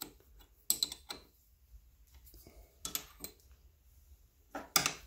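Scattered metallic clicks and clunks from hand work on a stopped Atlas metal lathe as it is set up and locked in place, coming in three short clusters with the loudest near the end.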